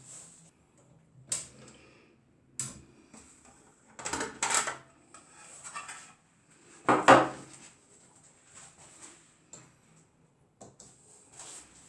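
Adler Gabriele 10 manual typewriter being worked by hand: scattered mechanical clicks and clunks at uneven intervals, with a short clatter about four seconds in and the loudest clunk about seven seconds in.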